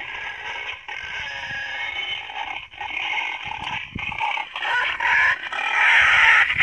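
Wild boar calling, rough and noisy, growing louder near the end: the boar's call that draws other boars to food.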